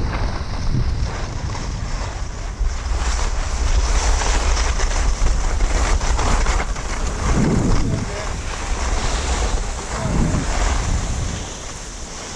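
Wind buffeting a moving action camera's microphone as a deep rumbling rush, over the hiss of skis sliding and scraping across packed snow, swelling and easing as speed changes.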